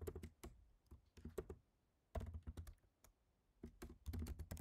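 Typing on a computer keyboard: quick runs of key clicks with short pauses between them, as a prompt is typed into a terminal.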